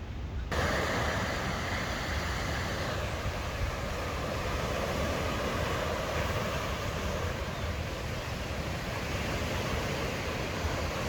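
Lake waves washing steadily on the shore, with a low wind rumble on the microphone. The sound starts abruptly about half a second in.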